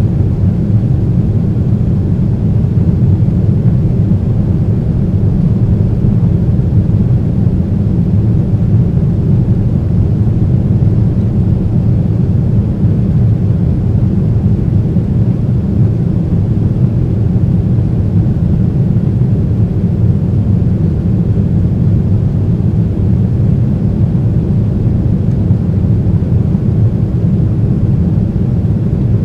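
Boeing 767-300's GE CF6 turbofan engines heard from inside the cabin: a steady, loud, deep rumble with no change in pitch or level.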